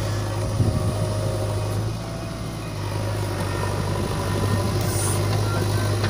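JCB 3DX backhoe loader's diesel engine running with a steady low drone as the machine works, with a short clatter of knocks about half a second in.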